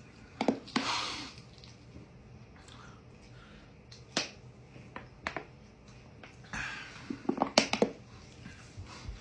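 Someone drinking fizzy soda from a plastic bottle: scattered wet mouth clicks and plastic crackles, with a short breathy rush about a second in and another near seven seconds.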